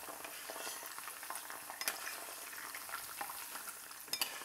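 Capers frying in hot oil: a steady sizzle with scattered small crackles as the wet capers burst open. A fine-mesh skimmer is stirring and lifting them out of the oil.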